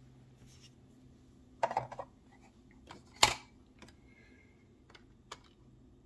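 A few light clicks and taps from handling tweezers and plastic model parts on a worktable: a short cluster about two seconds in, the sharpest single click a second later, and a faint tap near the end.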